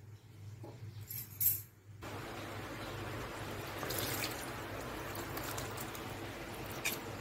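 A couple of clicks, then water running and splashing into a plastic basin: a steady hiss that starts abruptly about two seconds in.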